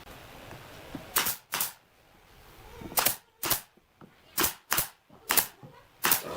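Pneumatic nail gun firing nine sharp shots, mostly in quick pairs, each with a short hiss of air.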